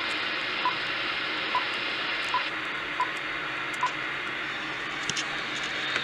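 Static hiss from a Johnson Viking 4740 CB radio's receiver, the hiss turning slightly duller about halfway through. Six short high beeps sound less than a second apart over the first four seconds.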